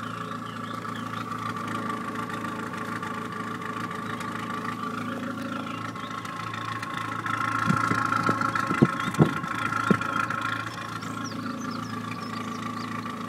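Renault Clio 197's 2.0-litre four-cylinder engine idling, heard at the tailpipe with the catalytic converter replaced by a de-cat pipe and the centre silencer removed. About halfway through it gets a little louder for a few seconds, with a few sharp clicks.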